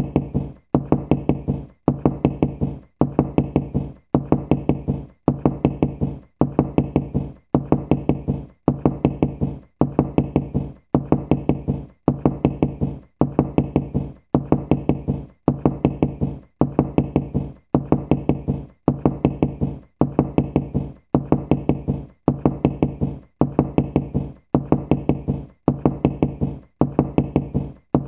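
Knocking in quick clusters of several raps, each cluster followed by a short pause, repeating about once a second. The knocks are deep and resonant.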